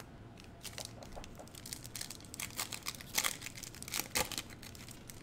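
Foil wrapper of a Panini Prizm basketball card pack crinkling and tearing as it is opened by hand, a run of irregular crackles with the loudest near the end.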